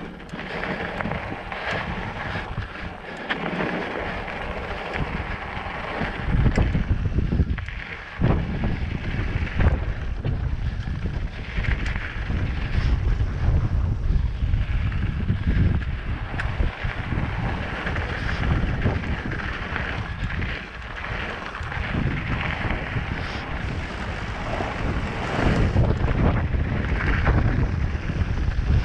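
Wind buffeting the microphone of a mountain bike riding down a dirt flow trail, swelling and easing with speed. Tyre rumble and scattered knocks and rattles from the bike run beneath it.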